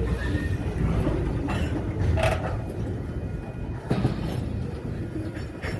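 Freight train of covered hopper cars rolling past, a steady wheel-on-rail rumble with a few sharp clanks as the car ends and wheel sets go by.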